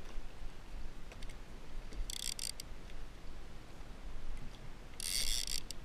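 Conventional fishing reel's drag buzzing in two short bursts, about two seconds in and again near the end, each about half a second long, as the hooked blacktip shark pulls line off against the drag.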